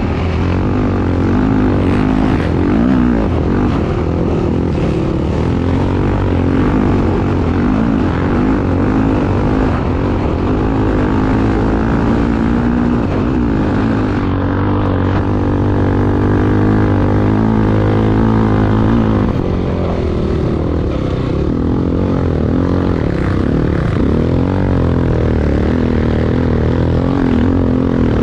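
Honda XR250 Tornado motorcycle's single-cylinder four-stroke engine running hard under racing throttle, its pitch rising and falling as the rider works the throttle, and holding steadier for several seconds in the middle.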